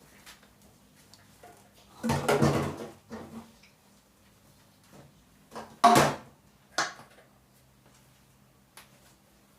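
Household objects being handled: a rattling clatter lasting about a second, then a sharp knock midway and a lighter one just after.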